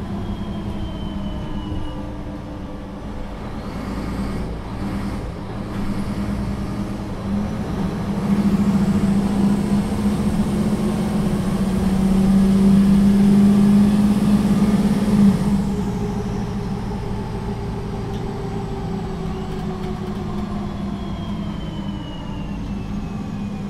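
Solaris Urbino III 12 city bus's diesel engine pulling hard under a kickdown, full throttle with the automatic gearbox shifting down. The engine noise swells from about six seconds in, stays at its loudest for several seconds, then drops back abruptly to a steady cruising hum.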